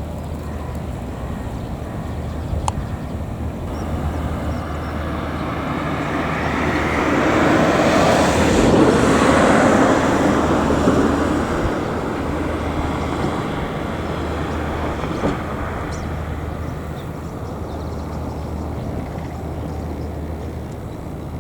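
A vehicle passing by: a noisy rush that swells to its loudest about halfway through and fades away again, over a steady low hum.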